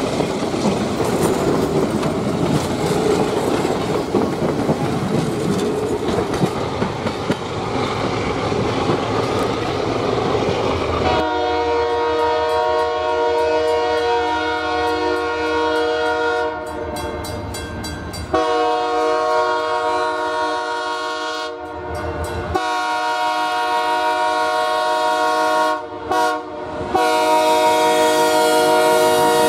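Diesel passenger train running by with its locomotives working and wheels on the rails. About a third of the way in, an FPA diesel locomotive's multi-chime air horn sounds four long blasts with short breaks between them.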